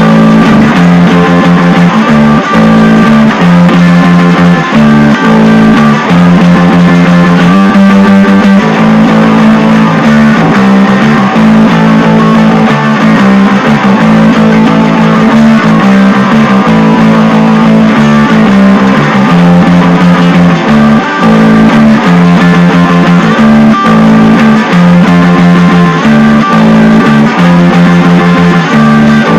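Loud instrumental music led by guitar, with held low chords that change every second or two.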